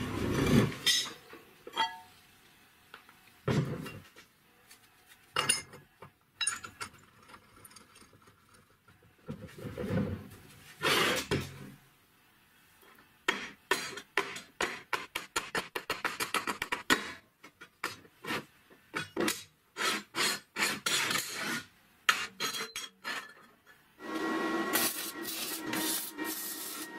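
A run of workshop sounds on a steel bench. First come separate knocks and scrapes as square steel tubes are set down and moved. Then a long series of quick rasping strokes, like filing. About three seconds before the end an electric arc welder strikes up, crackling steadily with a hum.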